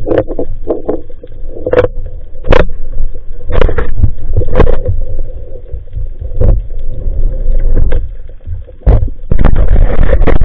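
Muffled underwater sound picked up inside a sealed SJ4000 action-camera housing: a deep steady rumble with sharp knocks and clicks as the spearfisher handles a speared fish, stringer line and speargun, then a louder rush of noise near the end.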